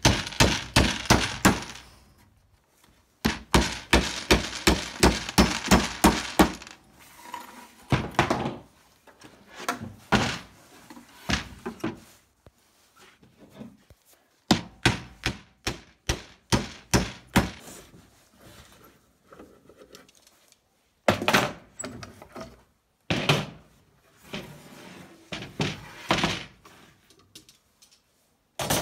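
Claw hammer driving galvanized ring-shank roofing nails by hand into the finger-jointed corners of a spruce hive box. There are several runs of quick blows, about four a second, with pauses and a few separate strikes between nails.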